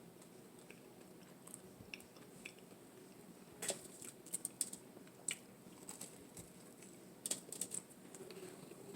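Close-up eating: a tuna melt sandwich being chewed, with sharp crisp clicks of bites and chewing in two clusters, around four seconds in and again near the end.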